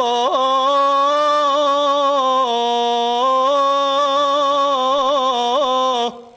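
A man's solo unaccompanied ibtihal chant: one long held note with quick ornamental turns in the voice, stepping down in pitch partway through and breaking off about six seconds in.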